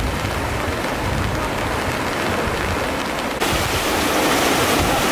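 Flooded Geul river rushing fast through a walled channel, a steady noise of churning water. About three and a half seconds in it cuts to a louder, hissier rush.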